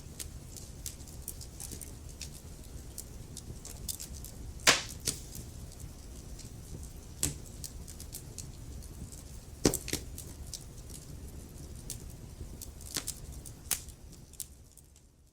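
Wood fire of burning logs crackling: a steady low rumble with many small snaps and a few sharper pops, the loudest about five seconds in and again about ten seconds in. The sound fades out near the end.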